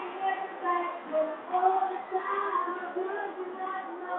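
A girl singing into a microphone, holding drawn-out notes in a gliding melody.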